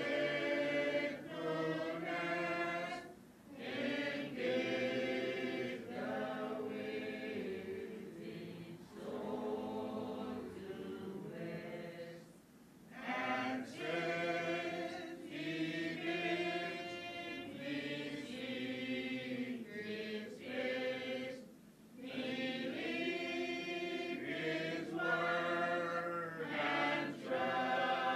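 A choir singing in long sustained phrases, broken by brief pauses every several seconds.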